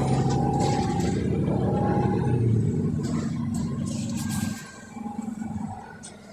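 Volvo B9TL double-decker bus heard from inside the passenger deck: its diesel engine pulls hard with a heavy low rumble and some rattling, then eases off sharply about four and a half seconds in.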